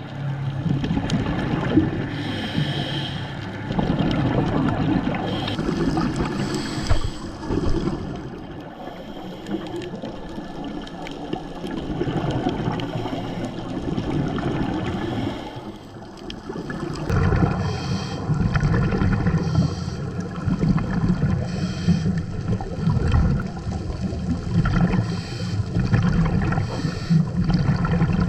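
Scuba regulator breathing heard underwater: hissing inhalations and bursts of bubbling exhaust every few seconds over a low rumble.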